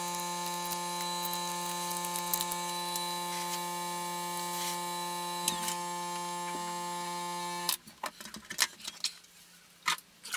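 Steady electrical hum with a faint high whine from bench equipment, which cuts off suddenly about three-quarters of the way through. A few light clicks and taps follow.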